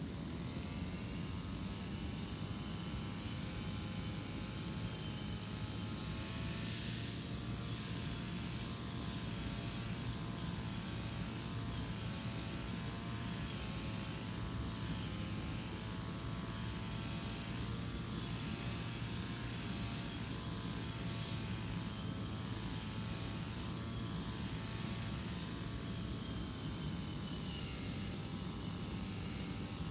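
Engine-powered brush cutter running steadily at cutting speed, its whine swelling about every two seconds as the cutting head sweeps back and forth through the grass.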